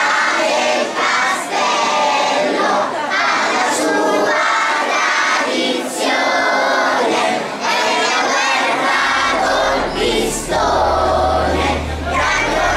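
A group of children and adults singing together in loud phrases with short breaks between them. About nine seconds in, a low steady bass note comes in underneath.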